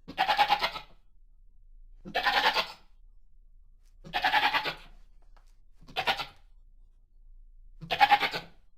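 Goat bleating: five separate bleats about two seconds apart, the fourth one short.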